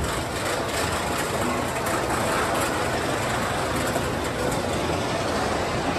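Steel roller coaster train climbing the lift hill, with the steady mechanical rumble and clatter of the lift running under it.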